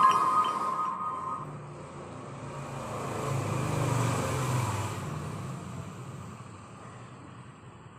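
A road vehicle passing outside, its engine rumble swelling to a peak about four seconds in and then fading away.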